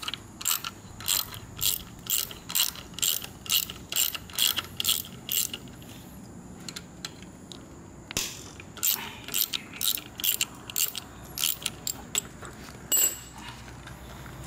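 A ratchet tool clicking as it turns the small screws of the autolube oil-pump cover on a Yamaha RXZ 135's crankcase. There is a steady run of about three clicks a second, a pause of a few seconds, then shorter, uneven runs with one louder click near the end.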